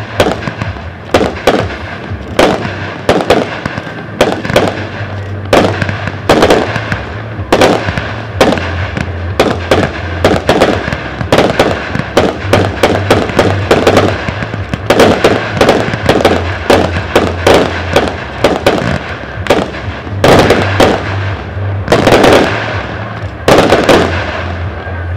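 Aerial fireworks going off in quick succession: sharp bangs several times a second with crackling star bursts, and a few heavier bangs near the end.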